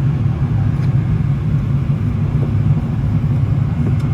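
Steady low rumble of a moving vehicle heard from inside.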